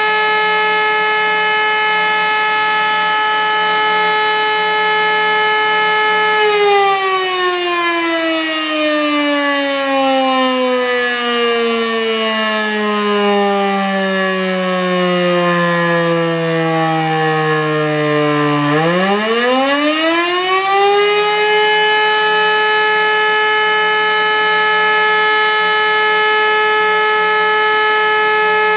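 Elektror E57 electric motor siren sounding a steady howl. About six seconds in it is switched off and winds down, its pitch sliding slowly lower for some twelve seconds. Then it is switched on again and the pitch sweeps quickly back up to the steady howl.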